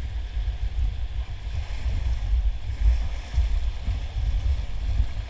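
River rapids rushing and splashing around an inflatable raft, with a steady low rumble of wind and water buffeting the microphone.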